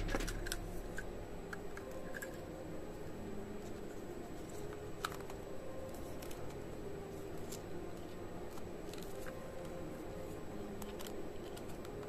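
Light clicks and rustles of hands handling a plastic hairdryer housing and its wires. There is a small cluster of clicks at the start, a single sharp click about five seconds in, and a few more around nine seconds.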